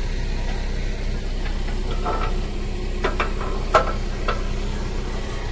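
Car-carrier tractor's engine idling steadily, with a few short sharp knocks in the middle, the loudest about four seconds in.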